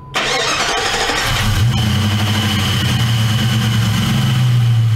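A Chrysler 4.7-litre V8 is started: the starter cranks briefly, the engine catches about a second in, and it settles into a steady idle. A thin, steady high-pitched whine runs over the idle.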